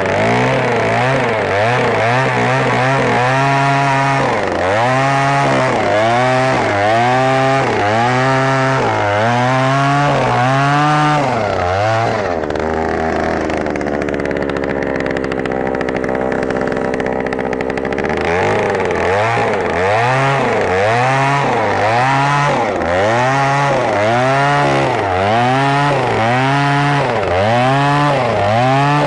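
An Oshima 2PS earth auger's 54 cc two-stroke engine runs while boring a hole in soil, its speed swelling up and falling back about once a second. Midway it settles at a steady lower speed for about six seconds, then the rhythmic revving starts again.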